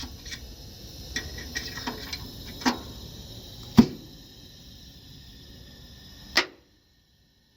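Scattered clicks and knocks over a steady low noise as the jack is let down and the truck cab settles onto its freshly fitted air bags, which are filling with air. The loudest knock comes nearly four seconds in, and the sound cuts to near silence about six and a half seconds in.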